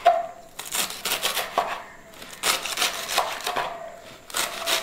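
Kitchen knife chopping spinach stalks on a wooden cutting board: a run of crisp cuts, about two a second and unevenly spaced.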